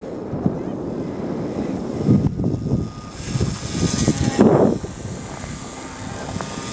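Small electric RC plane in flight, its motor and propeller whining faintly, under gusty wind buffeting on the microphone.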